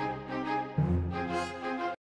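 Background music: held, sustained notes that change pitch about a third of the way in, cutting off abruptly near the end.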